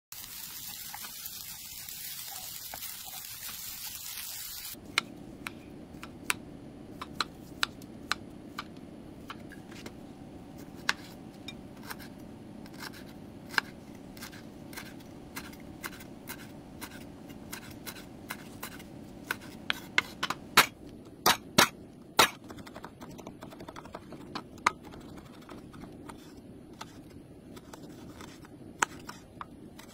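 Fried rice sizzling in a frying pan as a spatula turns it. Then a chef's knife slicing shallots, lemongrass and red chillies on a bamboo cutting board: irregular sharp taps of the blade on the wood, with a quick run of chops a little past the middle.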